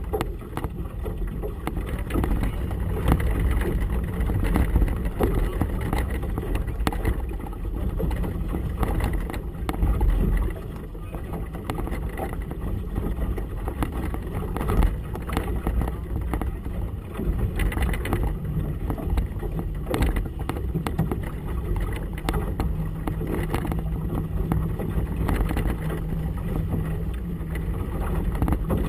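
A small motorboat's outboard motor running at low idle under wind buffeting on the microphone and choppy water against the hull. The low engine hum grows clearer in the last few seconds.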